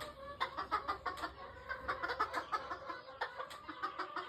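Chickens clucking: many short calls in quick, overlapping succession.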